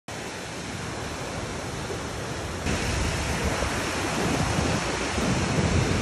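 Rushing water of a mountain river and waterfall: a steady, even roar that jumps louder about two and a half seconds in.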